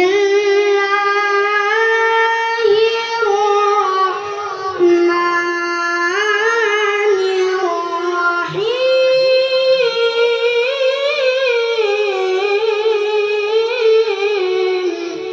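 A high voice chanting the Quran in melodic tilawah style, drawing out long melismatic phrases with wavering, ornamented pitch turns. A short breath about eight and a half seconds in starts a second long phrase.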